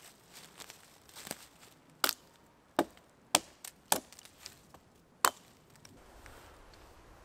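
Hultafors Hultan trekking hatchet chopping into a dead, mossy log: five sharp strikes between two and five seconds in, with a couple of lighter knocks between them.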